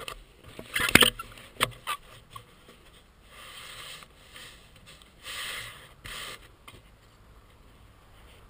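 Handling noise on a helmet-mounted camera: a few sharp knocks and clicks, then three short bursts of hiss from something rubbing against the microphone.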